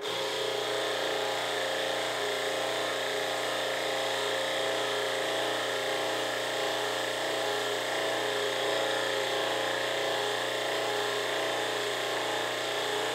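Vevor 10,000 PSI hydraulic pump running steadily with a constant hum as it drives the press brake's 50-ton rams down to bend 5/16-inch steel; it starts abruptly. The pump is lightly loaded, staying under 1,000 PSI for this bend.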